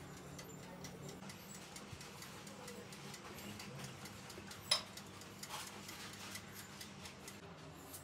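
Mechanical timer on an electric oven-toaster-grill ticking faintly, with one sharp louder click about halfway through.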